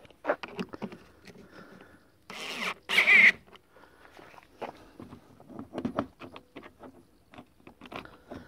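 Irregular plastic clicks and knocks from a car headlamp being handled and lined up with the panels around it. A loud scraping rush comes about two and a half to three seconds in.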